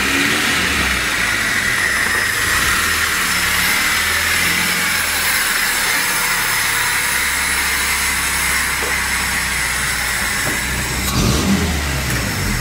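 Freshly rebuilt VAZ-2107 engine, a 1.6-litre carburetted four-cylinder, running steadily under an even hiss, with a short louder patch about eleven seconds in.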